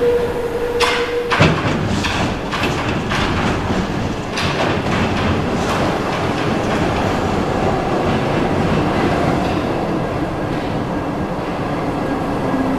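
RATP MF67 metro train pulling into the station. A steady tone cuts off about a second and a half in, then a quick run of sharp clacks as the wheels cross the track joints, settling into a steady rumble as the train runs along the platform.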